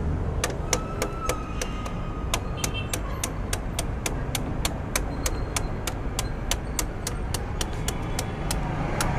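A steady run of sharp metallic clicks, about four a second, made during work on a motorcycle's exhaust muffler mounting, over a faint hum from the street. A thin whistle-like tone sounds faintly for a couple of seconds near the start.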